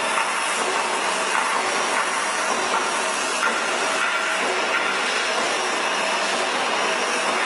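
Heavy lathe machining metal: a steady hissing, grinding noise with a few faint whining tones in it.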